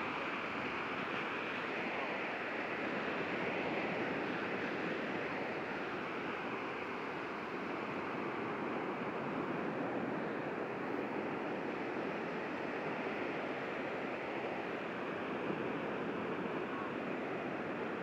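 Steady rushing wash of surf, even throughout, with no distinct calls or knocks standing out.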